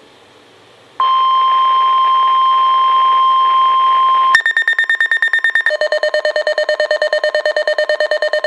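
NOAA Weather Radio's steady 1050 Hz warning alarm tone comes on about a second in over radio hiss. About three seconds later the weather radio receivers' own alert alarms go off in a rapid pulsing beep, with a second, lower-pitched beeping alarm joining a second or so after that. Together they signal an incoming severe thunderstorm watch alert.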